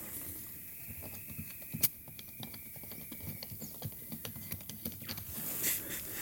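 Small clicks and taps as fingers handle a mini tyre pump and the valve stem of a motorcycle's front tyre, with a short hiss near the end as the valve is worked.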